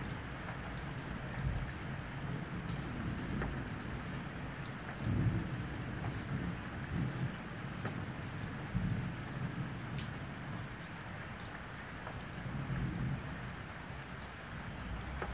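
Steady rain falling, with sharp ticks of single drops, over a low rumble of thunder that swells and fades several times.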